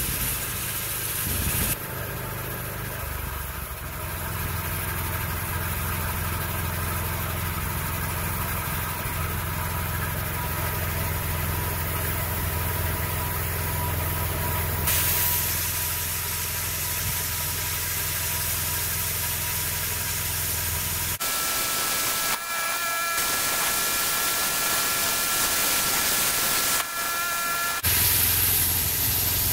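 Small gasoline engine of a homemade bandsaw sawmill running steadily with its blade turning. About two thirds of the way through, the sound changes abruptly to a thinner one with a few high whining tones, then returns near the end.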